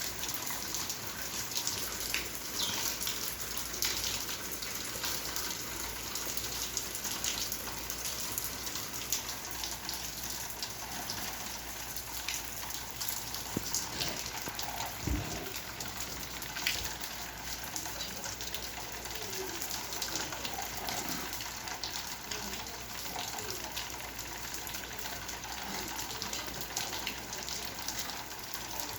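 Rain falling with water running and splashing: a steady hiss dotted with many small drop impacts.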